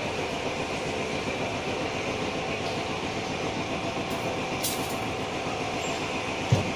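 Steady rumbling mechanical background noise, with a brief high hiss a little under five seconds in and a single short thump near the end.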